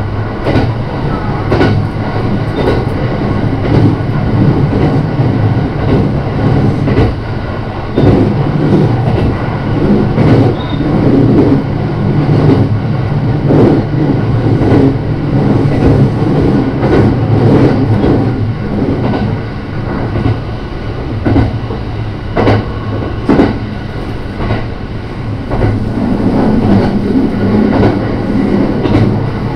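JR Shikoku 5000 series Marine Liner electric train running at speed, heard from on board. There is a steady low hum and irregular clicks of the wheels over rail joints.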